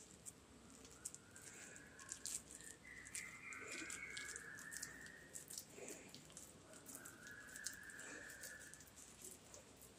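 Faint soft clicks and squelches of wet hands pressing and rolling soaked bread into a ball. A faint hiss-like sound comes twice, in the middle and again near the end.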